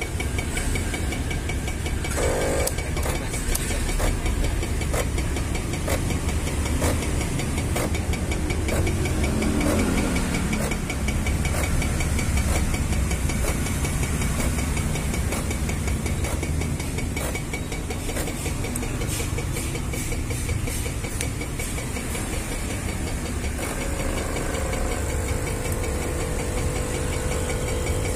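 Klaz automatic espresso machine running its cappuccino cycle: the pump runs steadily with a hiss of steam as it dispenses frothed milk and espresso into the cup. A new steady tone comes in about three-quarters of the way through.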